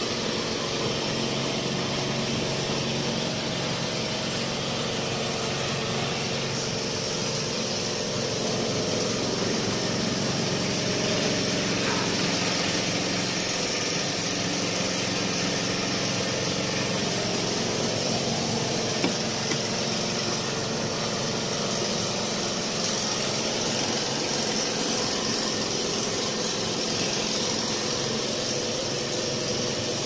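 An engine idling steadily, with one short click about two-thirds of the way through.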